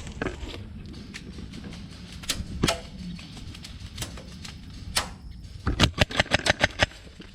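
Airsoft guns firing: a few single sharp shots, then a rapid string of about eight shots near the end.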